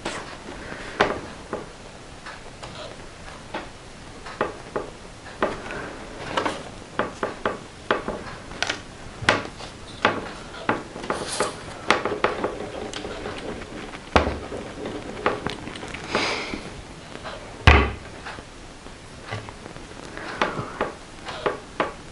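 Scattered clicks, taps and rustles of paper cut-outs, gauze and a plastic glue bottle handled on a table top, with two louder thumps about two-thirds of the way through as something is knocked or set down.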